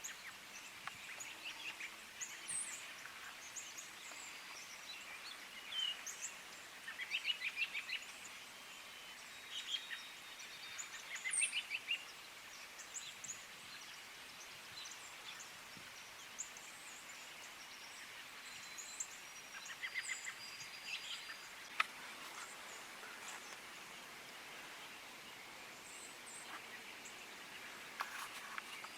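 Small birds chirping and calling in scattered short bursts of high chirps over a faint steady hiss, with one sharp click about three quarters of the way through.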